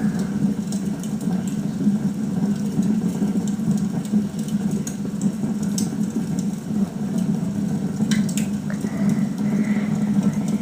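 Log fire crackling, with scattered sharp pops over a steady low hum, played through a TV's speakers.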